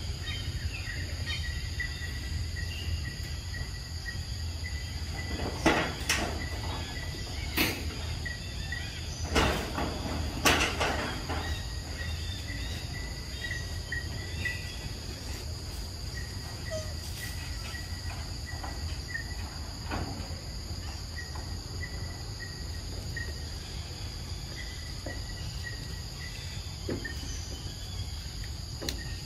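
Steady, high insect drone over a low rumble, with a few short rustling knocks, most of them between about six and eleven seconds in.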